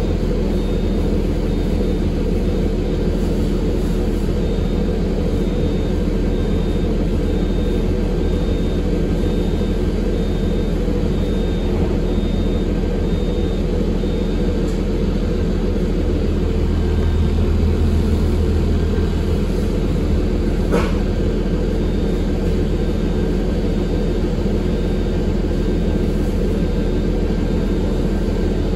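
Cabin noise of a 2022 Eldorado National Axess transit bus under way: steady engine and road rumble that swells a little about two-thirds of the way through. A faint high beep repeats about once a second through the first half and again near the end, and a single sharp click comes a little after the two-thirds mark.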